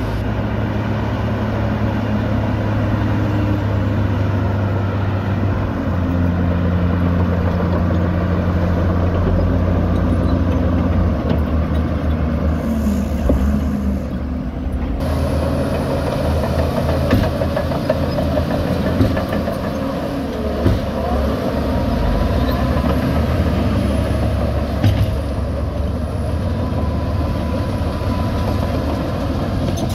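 Heavy diesel engines of a Shacman dump truck and a Shantui DH17 C2 bulldozer running steadily, the engine note shifting about six seconds in. About halfway through the sound changes abruptly to the bulldozer pushing soil, with a few sharp knocks.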